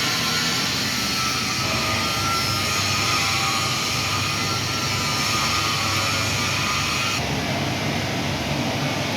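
Steady hiss of a TIG welding arc, which cuts out about seven seconds in, leaving a lower steady background hum.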